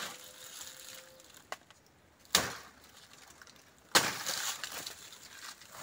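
A banana plant's stalk cracking as a bunch of green bananas is pulled down and torn loose. There are two sharp cracks, one about two seconds in and a louder one about four seconds in, and after the second comes a crackle and rustle of fibre and leaves.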